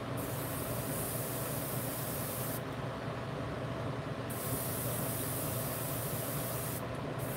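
Airbrush spraying paint: a high hiss that comes in bursts as the trigger is pulled and let off, cutting out twice, over a steady low hum.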